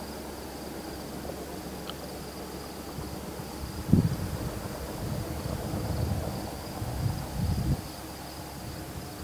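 Night insects keeping up a steady high trill. From about four seconds in, a low rumble starts sharply and swells and fades until near the end.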